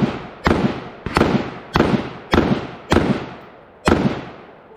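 Rapid gunfire from a competitor's gun on a match stage: a steady string of sharp shots, about one every 0.6 seconds, each ringing out briefly before the next, with a slightly longer gap before the last two.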